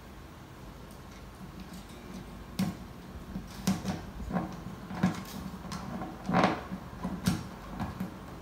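Irregular light knocks and clicks from handling at a 12-string acoustic guitar's bridge as a new string end and bridge pin are pushed into place, the guitar's top sounding under the fingers. The knocking starts about two and a half seconds in.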